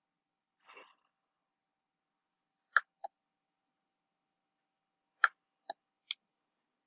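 Silence broken by a brief soft rustle about a second in, then a few short sharp clicks: two together near three seconds and three more in quick succession near the end.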